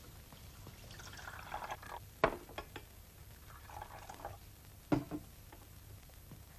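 Tea poured into a cup in two goes, first from a small teapot and then from a kettle, with two sharp knocks about two and five seconds in, the first the loudest.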